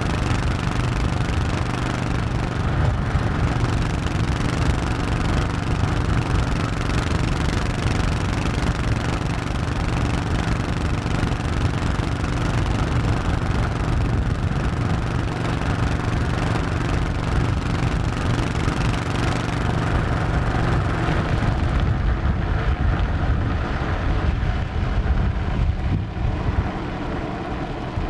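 Honda 1100 cc motorcycle engine running steadily while riding along, with wind and road noise over it. The high rushing noise thins out about three-quarters of the way through.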